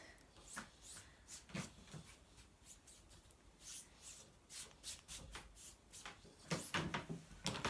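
Foam brush swiping paint across stretched silk, a run of faint, irregular brushing and rubbing strokes, a little louder and closer together near the end.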